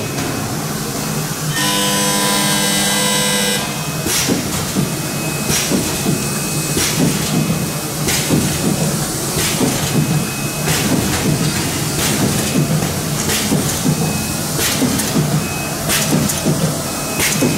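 Automatic rotary-index screen printing machine running, its pneumatic cylinders letting out short hisses and clacks every half second to second and a half over a steady machine hum. Near the start a steady tone with several pitches sounds for about two seconds.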